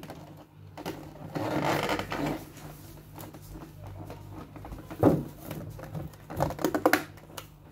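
Cardboard packaging being handled and opened: rustling and scraping, a sharp knock about five seconds in, and a quick run of clicks near the end.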